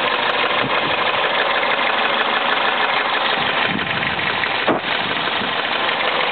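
2000 Toyota Celica GT's 1.8-litre four-cylinder engine running warm, with a rapid, steady ticking/knocking over the engine note and one sharper knock about three-quarters of the way through. The owner believes the noise is rod knock; a dealer put it down to the fuel injectors.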